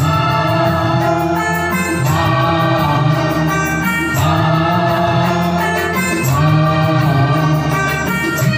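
A man singing into a handheld microphone over a recorded music backing track, with the music continuing steadily throughout.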